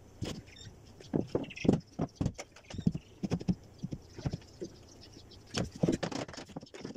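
Irregular wooden knocks and taps as a straightedge and a trim router are set down and shifted on an MDF door panel. The router motor is not running.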